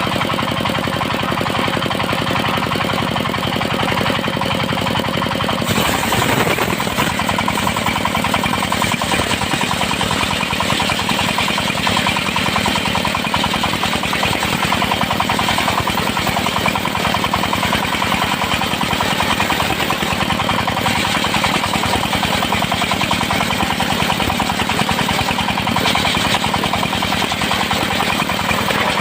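Engine-driven circular sawmill running steadily, the engine's fast even beat heard throughout. About six seconds in a higher hiss joins and carries on, typical of the blade cutting through teak.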